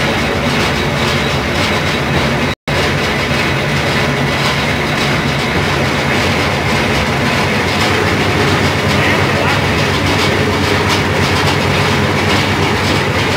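Motor-driven sugarcane crusher running steadily as cane stalks are fed through its rollers and crushed, a constant motor hum with a rattling clatter. The sound cuts out for an instant about two and a half seconds in.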